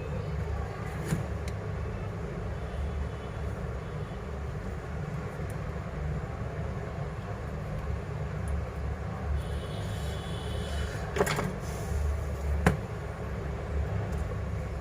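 Steady low background rumble with a few light clicks, the sharpest about eleven and twelve and a half seconds in.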